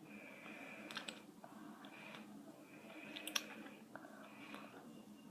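Faint handling noise of a plastic mouthguard, with a few light, sharp clicks, the strongest just past the middle, over a low steady room hum.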